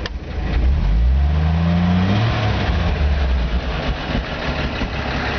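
1957 Chevy 3100 pickup's engine running at idle, heard from inside the cab. About a second in it is revved once: the pitch rises for about a second, then drops back to idle.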